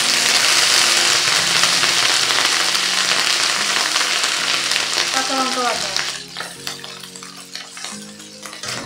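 Ginger paste sizzling in hot oil with whole spices in a metal kadai as a metal spatula stirs it. The loud sizzle dies down after about six seconds.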